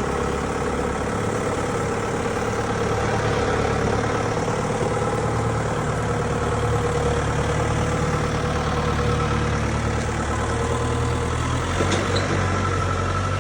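Mobile jaw crusher plant with its diesel generator running steadily, a constant engine drone with a steady hum above it; a brief sharp knock about twelve seconds in.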